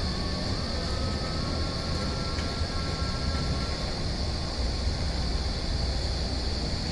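Drive machinery of a retractable stadium roof running, its wheeled carriage rolling along the steel roof rail. It makes a steady rumble under a constant high-pitched hiss, with a faint whine that fades out about halfway through.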